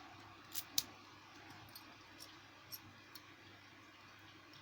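Small clicks and taps from a Federal euro cylinder lock and its keys being handled: two sharper clicks close together about half a second in, then a few fainter ones.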